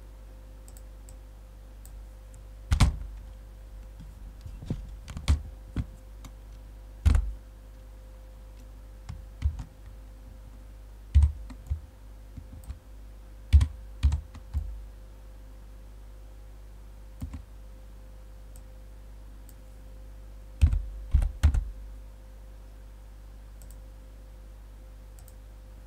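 Computer keyboard keys and mouse buttons clicking in scattered groups, some clacks carrying a low desk knock, as a value is typed in and the view adjusted. A steady low hum runs underneath.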